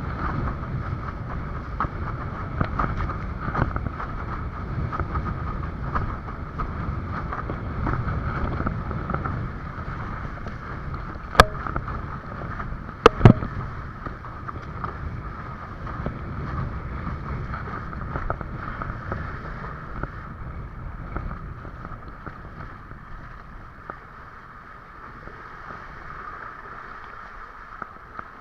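Wind buffeting the microphone over rushing water while windsurfing, with two sharp knocks about eleven and thirteen seconds in.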